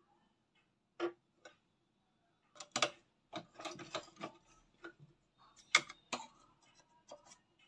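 Scattered light clicks and taps, about a dozen with gaps between them, as cloth pieces and scissors are handled on the bed of a sewing machine.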